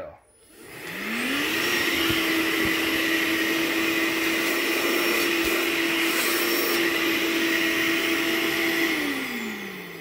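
Hoover ONEPWR Spotless Go cordless portable carpet and upholstery cleaner's suction motor switched on, spinning up to a steady whine in about a second. It runs steadily with an airy hiss, then is switched off and winds down with a falling pitch near the end.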